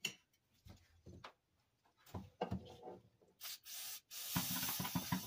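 Aerosol carburetor cleaner sprayed onto the A/C line fittings in two hissing bursts, a short one about three and a half seconds in and a longer one from just after four seconds. Before them come a few light knocks and rubbing of parts being handled.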